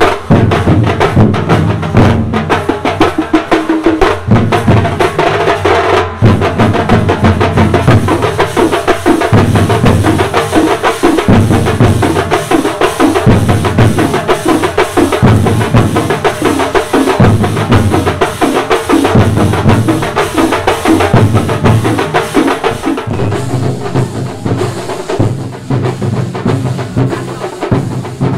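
A street drum troupe beating large round drums with sticks in a dense, driving rhythm, the heavy low strokes repeating in phrases of about a second.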